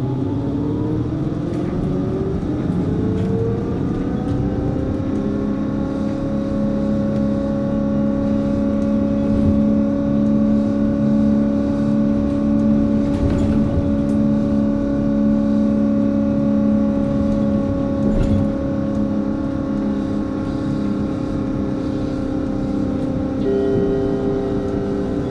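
Hess Swisstrolley 3 articulated trolleybus heard from on board. The electric traction drive's whine rises in pitch over the first five seconds as the bus pulls away, then holds a steady pitch over road rumble as it runs at an even speed. Near the end the pitch dips slightly and a new tone joins.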